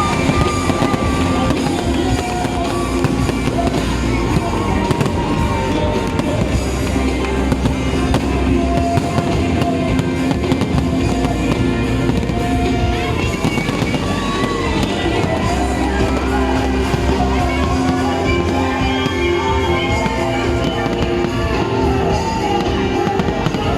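Fireworks bursting in rapid, continuous succession over loud music.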